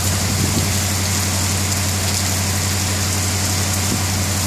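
Heavy rain falling steadily in a continuous hiss, with a steady low hum underneath.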